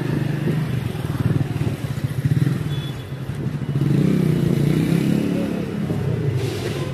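City street traffic: car engines passing close by, loudest about four to five seconds in.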